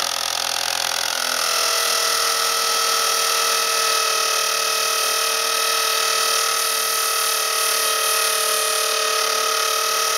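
Corded electric drill, clamped to a table edge and driving a sanding disc, running at steady speed while a wooden spoon is sanded against the disc: a loud steady motor whine with a hiss of abrasive on wood. It starts suddenly, and its pitch settles a little lower about a second in.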